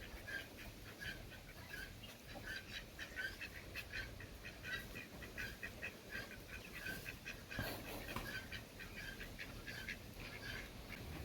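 A string of short, high, squeaky animal calls, a couple each second, going on and on.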